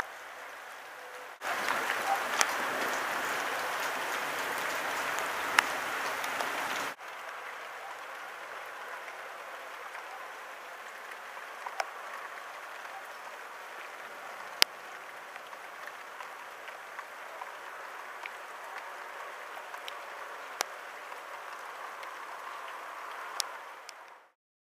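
Light rain falling, a steady patter with occasional sharper drop clicks close by. It is much louder for a stretch from about a second and a half in to about seven seconds, starting and stopping abruptly, and cuts out just before the end.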